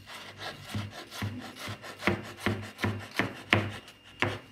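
Kitchen knife chopping potato into small dice on a wooden cutting board: a steady run of blade knocks on the wood, about two to three a second. The strokes stop just before the end.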